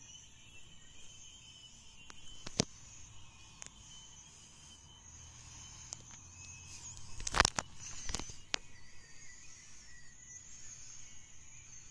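A few sharp taps and knocks from fingers handling a smartphone, the loudest a fuller thump about seven seconds in, over a faint steady high hiss.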